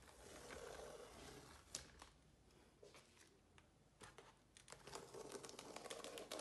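Blue masking tape being peeled off the edges of a painted canvas: faint crackling and ripping, in two pulls, one near the start and another from about four and a half seconds in.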